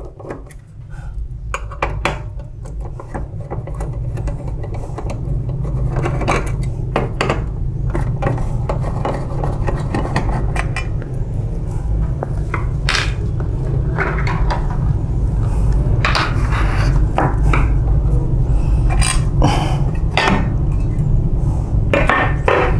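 Screwdriver turning out the small screws that hold the sheet-metal cover over the cleaning blade of a Toshiba e-Studio 856 copier drum unit. Scattered sharp metallic clicks and clinks come as the screws and the steel plate are handled, over a steady low hum.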